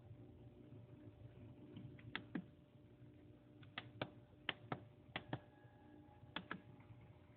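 Sharp light clicks, about ten of them, mostly in close pairs a quarter second apart, over a faint steady hum.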